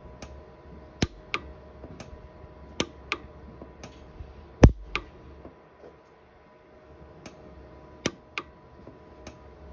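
Orion 150s pulse arc micro TIG welder firing single weld pulses into porosity cracks on a silver ring. Each pulse is a sharp snap, about a dozen irregularly spaced ones, with one much louder a little before halfway.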